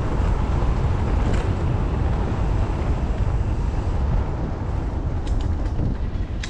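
Wind buffeting the camera microphone as a steady low rumble while moving quickly along a dirt trail, with a few light rattles about a second and a half in and again near the end.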